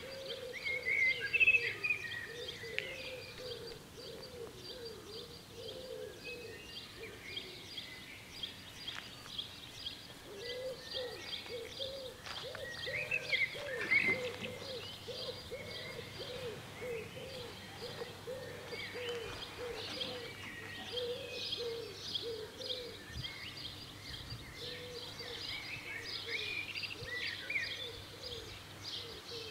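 Birds chirping and singing, over a low cooing call repeated again and again. About halfway through there is a short louder sound, and a faint steady low hum sets in as the level crossing's warning lights switch on and its barriers lower.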